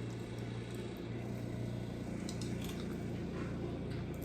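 Quiet room tone: a steady low hum with a few faint light clicks.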